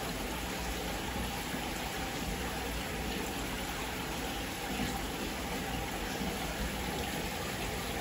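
Aquarium filter running: a steady rush of bubbling, gushing water that does not change.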